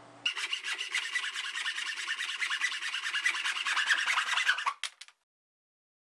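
Hand saw cutting through a wooden strip, a steady run of quick back-and-forth rasping strokes that stops abruptly near the end.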